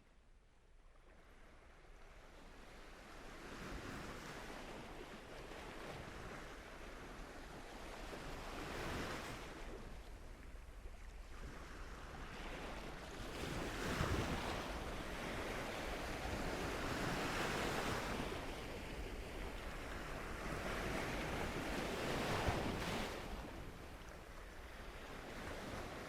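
Ocean surf: waves rushing and breaking, fading in over the first few seconds and then swelling and ebbing every few seconds.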